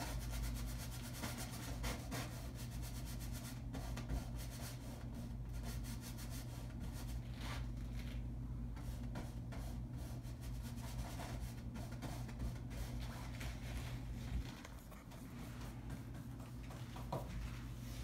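Paintbrush stroking and scrubbing paint onto a stretched canvas: many quick, scratchy strokes one after another, over a steady low hum.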